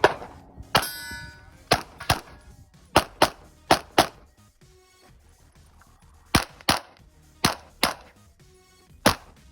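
Smith & Wesson M&P 2.0 pistol firing about a dozen sharp shots, mostly in quick pairs with short pauses between strings. The shot about a second in is followed by a brief metallic ringing.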